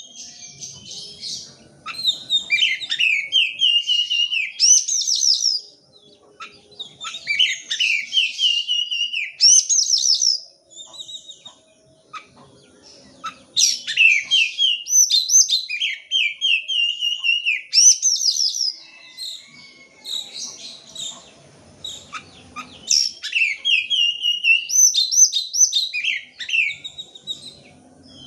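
Oriental magpie-robin (kacer) in full song: loud, varied phrases of fast rising and falling whistles and trills, delivered in bursts with a couple of short pauses.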